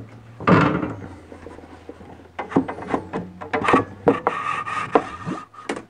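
Old carpenter's handsaws being handled: a crosscut saw set down on a wooden workbench with a clatter about half a second in, then knocks and the scrape of a steel saw blade sliding against wood as another saw is drawn out of the toolbox's wooden saw till.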